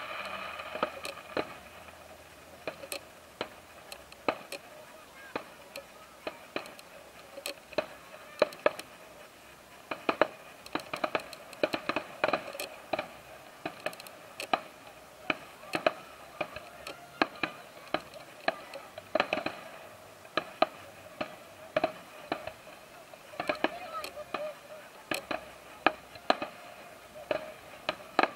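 Aerial fireworks bursting in a quick, irregular series of sharp bangs and pops, several at a time in places. Crowd voices run underneath.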